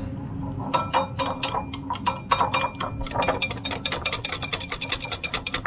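Metal wire whisk beating yogurt and egg yolk in a glass bowl: fast, even clicks of the wires against the glass, starting about a second in.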